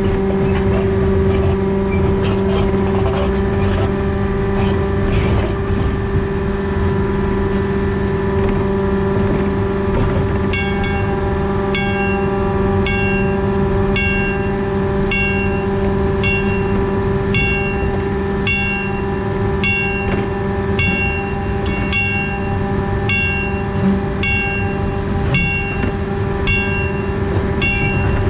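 Diesel engine of a 1910 narrow-gauge steam locomotive converted to diesel-hydraulic drive, running steadily with a constant hum over rumbling rail noise. About ten seconds in, a bell starts ringing in steady strokes, a little more than once a second, and keeps going.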